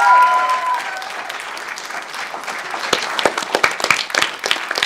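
Theatre audience applauding, a dense patter of many hands clapping. A voice calls out briefly at the start, and from about three seconds in louder, sharper claps stand out from the rest.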